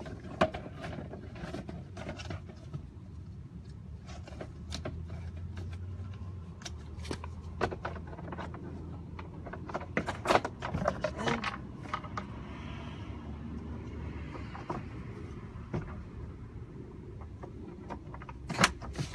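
Clicks, knocks and rustles of a cabin air filter being swapped by hand in a 2005 Toyota Celica, with two sharper knocks near the end. A low steady hum runs underneath for much of it.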